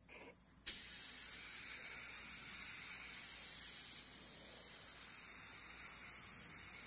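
Compressed-air gravity-feed spray gun spraying primer, a steady hiss that starts abruptly about half a second in and drops slightly in level about four seconds in.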